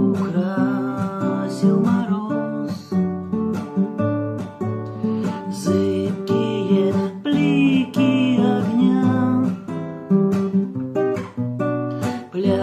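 Instrumental passage of a song, led by strummed acoustic guitar.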